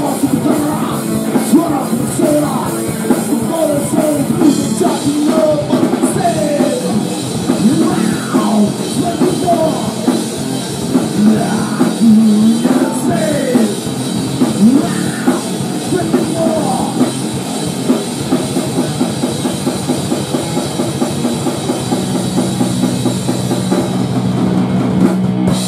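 Rock band playing a grunge song loud, with a drum kit under a pitched line that slides up and down. One low note is held steady over the last few seconds.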